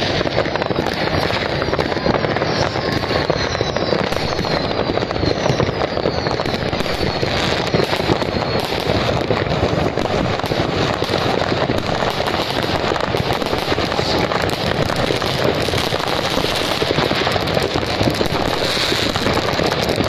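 Dense New Year's Eve fireworks: many rockets and firecrackers going off at once in a continuous crackling barrage. Several high whistles fall in pitch during the first third.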